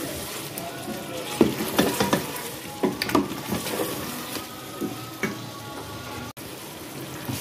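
Chicken and taro root pieces sizzling in oil and spice paste in a metal pot, stirred with a wooden spoon. Scrapes and knocks of the spoon against the pot sound over a steady sizzle as the mixture is browned.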